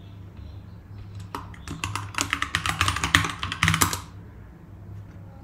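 Typing on a computer keyboard: a quick run of keystrokes starting about a second in and stopping about four seconds in, over a low steady hum.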